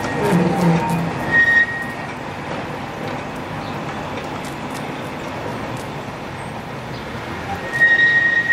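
Heritage tram running along its track with a steady rumble. A high steady squeal of the wheels comes briefly about a second and a half in, then returns loudly near the end.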